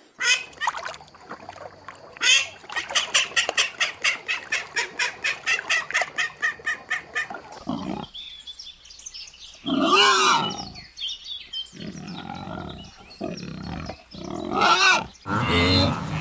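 Farm animal calls: a fast, even run of short calls, about five a second, then two longer calls about ten and fifteen seconds in.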